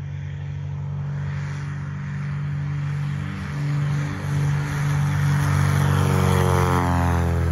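Cessna 182's piston engine and propeller at full takeoff power on the takeoff run, growing louder as the plane nears. From about six and a half seconds in, its pitch falls as it passes by.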